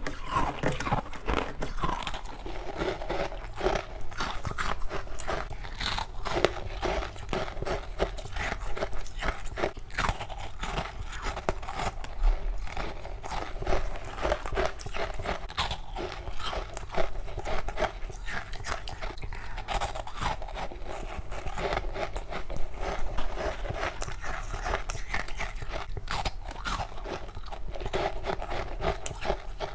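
Humidifier frost with passion fruit being bitten and crunched in quick succession, a dense run of crisp crunches close to the mouth.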